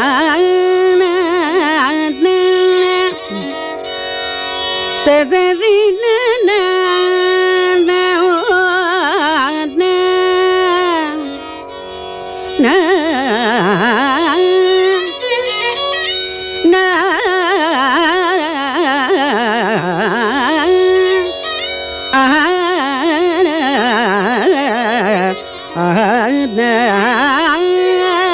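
Carnatic vocal music in raga Bilahari: a heavily ornamented melody with sliding, oscillating notes over a steady drone.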